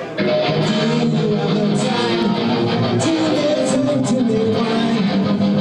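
Live electric guitar music through an amplifier, cutting in abruptly just after the start and then playing steadily.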